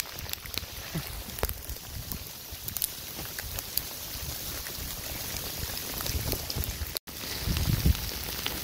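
Hailstones falling and striking the ground and clothing: many scattered sharp ticks over a steady hiss, with a low rumble underneath that grows louder after a short break about seven seconds in.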